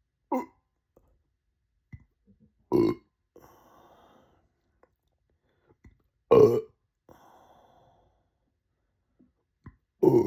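A person burping repeatedly: four loud burps a few seconds apart, the first short, with faint breathing between them.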